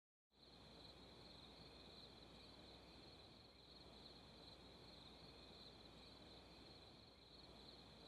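Faint, steady chirring of crickets as a night ambience, starting a fraction of a second in after dead silence.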